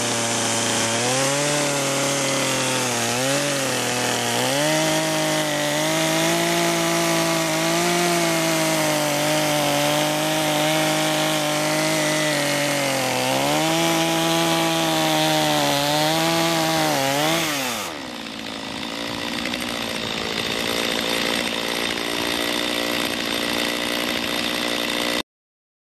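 Chainsaw cutting a bore cut straight into a tree trunk, its engine pitch rising and dipping as it loads and unloads in the wood. About 18 seconds in the pitch drops away and the saw runs on more steadily until the sound cuts off abruptly near the end.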